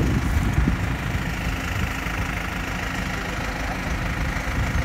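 Crane truck's engine idling steadily, low-pitched with a steady hum. A brief thump right at the start.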